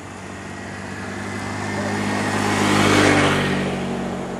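A motor scooter passes close by, its engine and tyre noise growing louder to a peak about three seconds in, then falling away.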